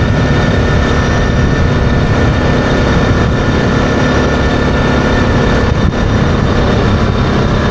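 Yamaha Grizzly 660 ATV's single-cylinder engine running steadily at cruising speed, with wind buffeting the microphone.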